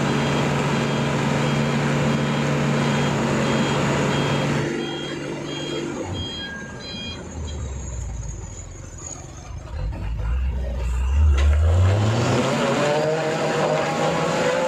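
Tanker truck's diesel engine labouring in deep mud: it runs steadily under load, drops to a low rumble about five seconds in, then revs up sharply near the end as the rear wheels spin. A short high beeping sounds a few times around the drop.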